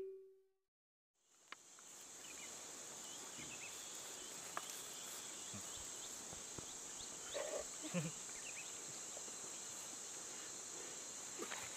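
Faint outdoor ambience: a steady high-pitched insect drone with scattered short bird chirps. A few soft knocks and rustles come about two thirds of the way through.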